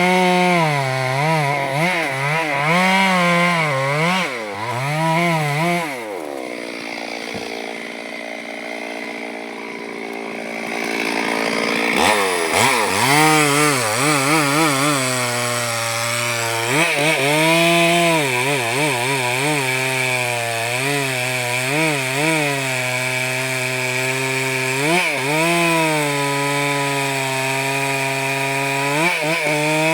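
Chainsaw cutting a tree, its engine pitch rising and sagging over and over as the chain bites into the wood. About six seconds in it eases off to a steadier, quieter run, then revs back up about twelve seconds in and carries on cutting.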